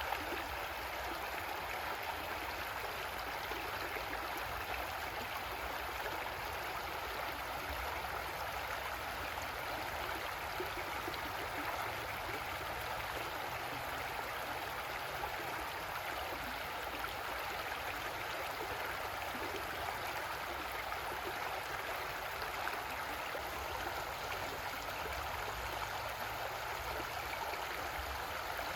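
Creek water flowing over rocks, a steady rushing and gurgling.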